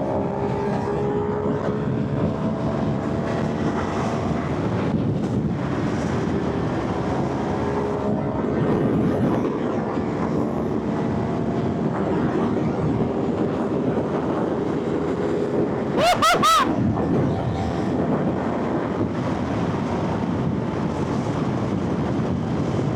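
CFMoto 450SR parallel-twin motorcycle engine running steadily at motorway speed, its pitch drifting slowly, with wind rushing over the microphone. About 16 seconds in, a brief loud engine note rises and falls sharply in pitch.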